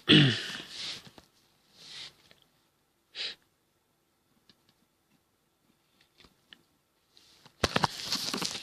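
A person lets out a short sigh that falls in pitch, followed by breaths and a sniff, then a few faint clicks. Near the end a loud rustling noise starts and runs on.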